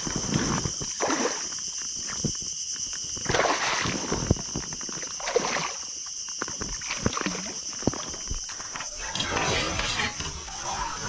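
A hooked barramundi thrashing at the water surface beside an inflatable boat as it is netted: bursts of splashing, the longest near the end as the fish is scooped up in a landing net.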